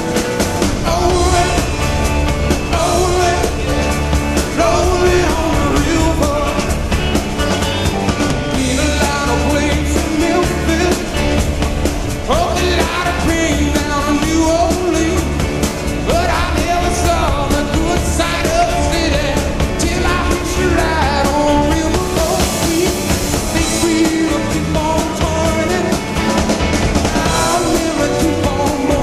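Background music: a rock song with a lead vocal over a steady beat.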